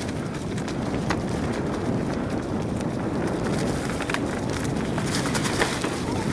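Bike tyres rolling and crunching over dry fallen leaves on a descending dirt trail, a steady rushing noise with scattered sharp clicks and rattles from the bike over bumps.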